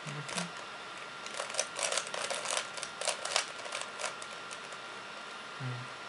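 A plastic 3x3 Rubik's cube being turned quickly by hand: a flurry of rapid clicks as its layers turn, starting about a second in and lasting a few seconds.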